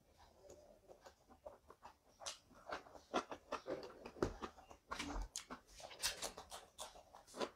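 Close-miked eating sounds: wet chewing and lip smacking on mouthfuls of rice and curry, an irregular run of quick sharp clicks.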